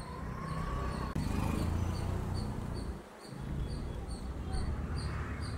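City street traffic noise: a steady low rumble of passing vehicles, with a faint, evenly spaced high ticking over it.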